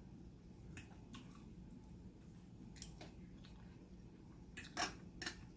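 Close-miked eating sounds from someone chewing a chicken quesadilla and lettuce salad: a few soft, scattered crunches and wet mouth clicks, the sharpest about five seconds in.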